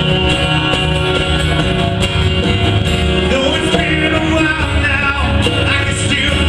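Live band playing a country-rock song at a steady loud level, with a regular beat throughout.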